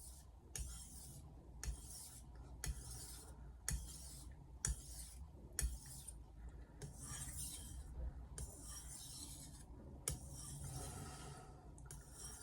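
Steel blade of a 210 mm Misono Japanese knife drawn lightly across a whetstone to remove the burr after sharpening. Soft scraping strokes, roughly one a second, many starting with a small click.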